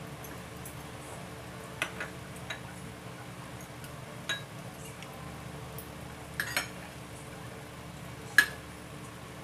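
Metal fork and spoon clinking and scraping against a ceramic plate while eating: about seven short, sharp clinks spread out, the loudest near the end.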